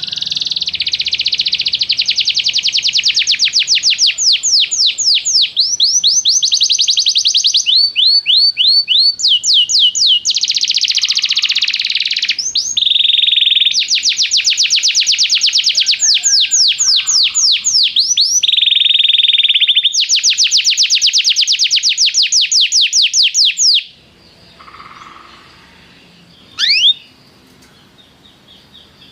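Domestic canary singing a long song of rapid trills, each a fast run of repeated high sweeping notes, switching to a new trill every second or two. The song stops about 24 seconds in, and one short rising chirp follows a few seconds later.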